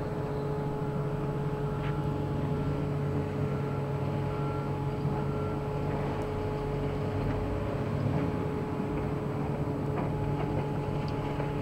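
Heavy demolition machinery such as excavators running with a steady engine drone. A faint reversing beeper sounds a few times early on.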